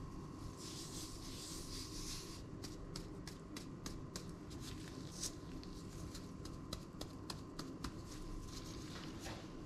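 Gloved hands dredging a raw chicken breast in flour on a ceramic plate. There is a soft rubbing rustle for the first couple of seconds, then a run of light pats and clicks as flour is sprinkled and pressed onto the meat, over a steady faint hum.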